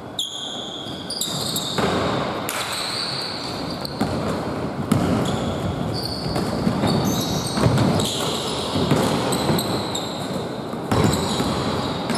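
Basketball play on a hardwood court: the ball bouncing and knocking several times, mixed with short high squeaks of sneakers on the wooden floor.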